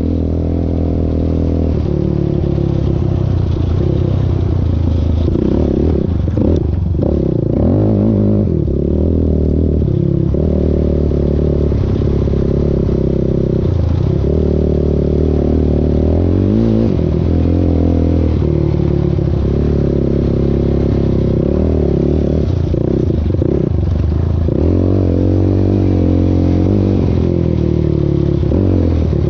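Small off-road vehicle engine running along a dirt trail, its pitch rising and falling with the throttle, with rattling over the rough ground.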